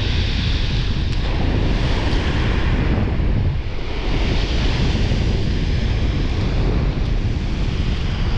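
Strong wind buffeting the microphone, with rough surf washing in behind it in slow swells.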